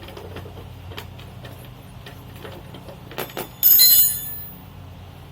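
Metal tool clanging against metal during tyre-changing work: two light knocks, then one loud strike that rings out briefly with a high metallic tone. A low steady hum runs underneath.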